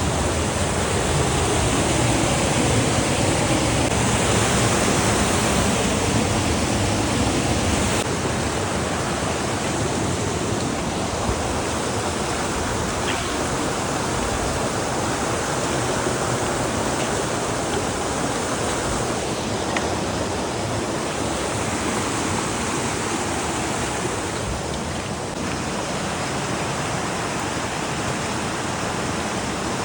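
Steady rushing of falling water from a waterfall and its stream.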